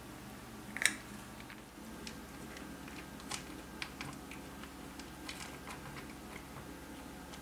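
A cat chewing dry kibble from a bowl: a scatter of small, irregular crunching clicks, with one sharper click about a second in.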